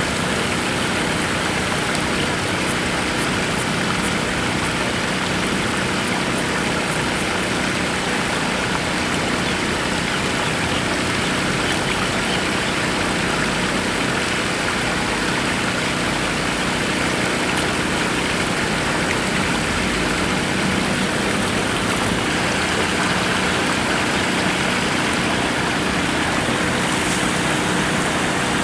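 Water pouring steadily over a small stepped weir into the river, a constant even rush with no pauses.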